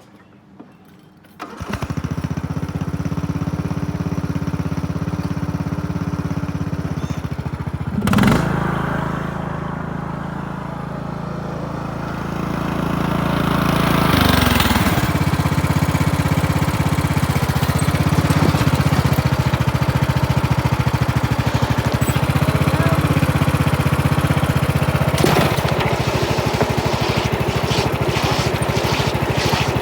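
Riding lawnmower engine starts up about a second and a half in and then runs steadily. Its sound briefly changes in pitch and level around eight seconds in, and again around fourteen seconds in, after which it runs a little louder.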